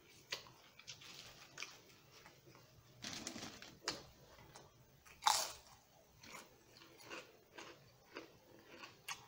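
A person chewing and crunching potato chips, a run of short crisp crunches with the loudest about five seconds in.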